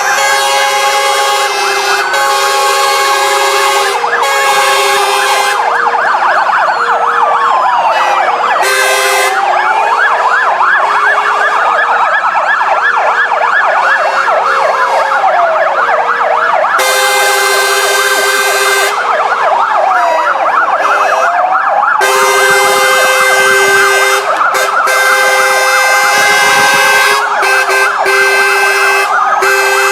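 Several fire engine sirens sounding at once. Slow rising-and-falling wails overlap fast yelps and a two-note alternating tone.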